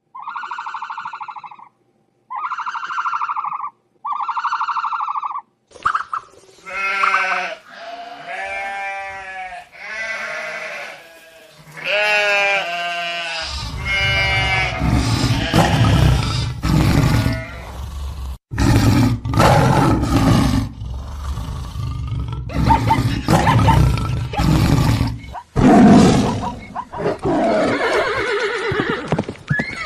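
Animal sound effects: three short buzzy bleats, then a string of calls bending up and down in pitch. From about halfway a stampede of galloping hooves rumbles on, with animal calls over it.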